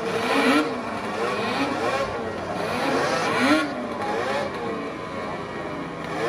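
Snowmobile engines revving at the drag start line in repeated throttle blips, the pitch rising and falling about once a second.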